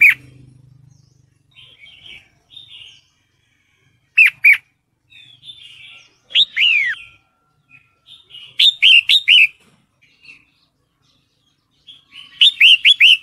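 Red-whiskered bulbul calling: short runs of sharp, falling whistled notes, two to five at a time every few seconds, with softer chattering between them. Offered as a female in breeding condition calling a male, used to lure males into song.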